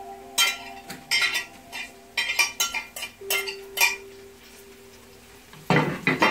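Chopped tomatoes and green chillies being scraped off a tray into a steel cooking pot: a run of sharp metal clinks and taps from the knife against the tray and pot, then a louder scraping rattle near the end.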